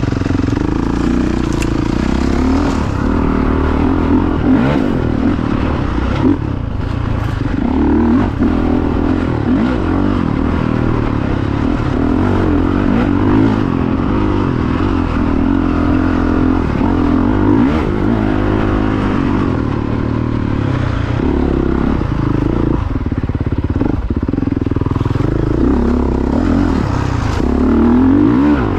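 Dirt bike engine running with the throttle rising and falling, its pitch climbing and dropping again and again as the bike is ridden along a rough dirt trail. Scattered knocks and rattles come from the bike over bumps.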